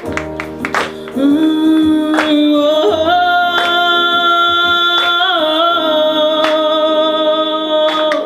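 A woman singing live into a handheld microphone: one long held note that begins about a second in, rises about three seconds in, wavers around the middle and is held until near the end, over light instrumental accompaniment.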